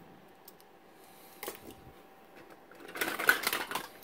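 Small hard toys clattering together in a rapid rattle as a toy is tossed into a bin of toys, about three seconds in and lasting most of a second, after a few light clicks of handling.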